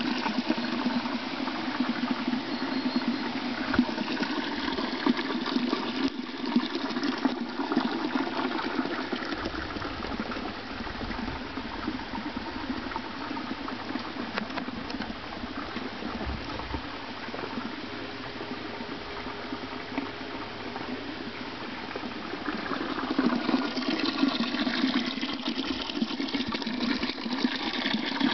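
Spa mineral spring water pouring from a spout into a stone basin: a steady splashing rush, weaker in the middle and growing louder again over the last few seconds.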